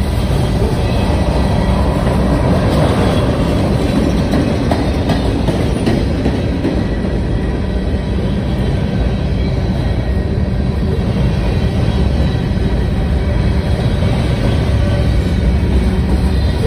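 Freight train's covered hopper cars rolling past close by: a steady, loud rumble of steel wheels on the rails, with faint high ringing tones over it.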